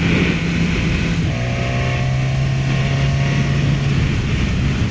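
Motorcycle engine running on the road, its note stepping down in pitch about a second in and again near the end as the rider eases off, over a steady rush of wind and road noise.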